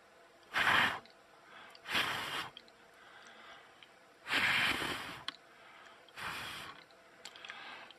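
A man blowing four short puffs of breath onto the electret microphone of a sound-controlled LED lamp kit, to set off its LEDs. The third puff is the longest.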